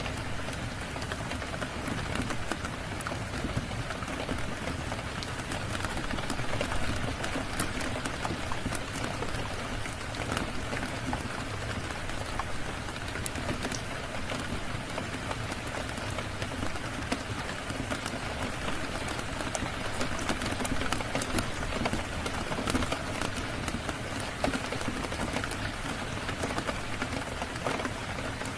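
Steady rain falling, a dense even hiss with scattered sharp ticks throughout.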